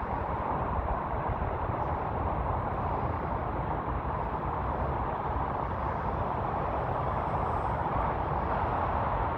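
Steady rushing outdoor noise, even throughout, with no distinct calls, tones or knocks standing out.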